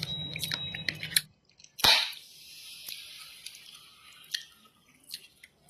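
Close-up eating sounds of noodles being chewed: wet mouth clicks and smacks, with one sharp click about two seconds in followed by a soft hissing slurp.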